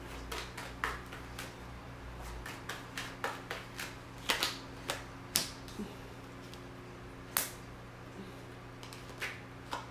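Tarot deck being shuffled by hand: irregular quick clicks and slaps of cards against one another, with a few sharper snaps.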